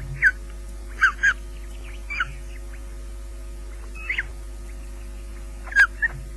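Ospreys at the nest giving short, sharp whistled calls, about seven of them, each dropping quickly in pitch, over a steady electrical hum.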